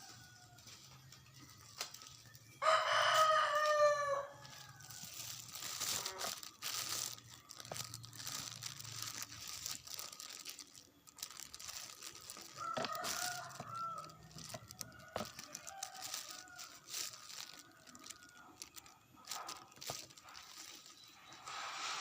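An animal's drawn-out call, about a second and a half long, comes about three seconds in and is the loudest sound, sliding slightly down in pitch. A fainter call follows near the middle, among scattered clicks and rustling.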